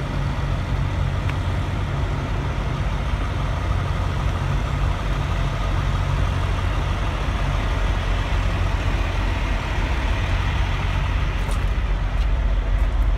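Diesel semi-truck engine idling, a steady low drone that grows a little louder near the end.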